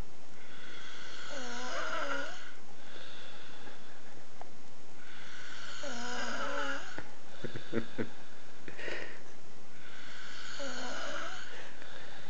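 A man snoring: three long snores about four seconds apart, each with a wavering, whistly pitch.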